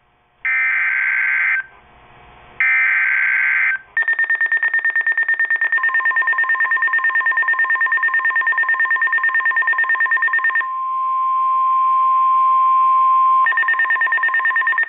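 NOAA Weather Radio alert signalling. First come the last two of the three one-second bursts of the SAME digital header, a warbling data screech. Then a rapidly pulsing high beeping starts, and the steady 1050 Hz weather-radio warning tone joins it, sounds alone for a few seconds, and has the pulsing come back over it near the end. The tones mark the start of a new warning broadcast.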